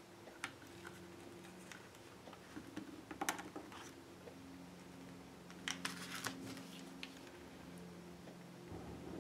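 Faint scattered clicks and taps of small found objects being handled and set into a metal Altoids tin, over a low steady hum.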